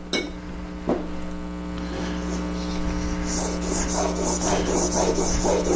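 A chisel in a honing jig being rubbed back and forth on an 800-grit water stone, in quick, regular strokes that start about three seconds in. A couple of knocks come near the start, and a steady electrical hum runs underneath.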